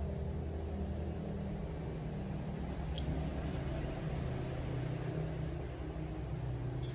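A steady low engine hum, with a faint click about three seconds in.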